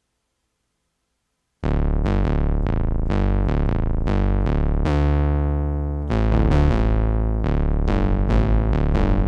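Artisan Iliad analog-hybrid polysynth playing a simple bass patch. About a second and a half in, a line of short, plucky bass notes begins, each with a bright attack that dies away quickly, with one longer held low note midway.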